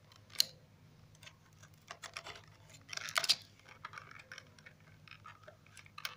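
A cardboard retail box and its clear plastic insert being cut and pried open by hand: scattered scratching, clicking and rustling of cardboard and plastic, with a sharp click about half a second in and a louder rustle about three seconds in.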